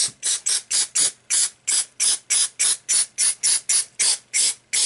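Aerosol can of Halfords electrical contact cleaner sprayed onto a circuit board in quick short bursts, about four hisses a second.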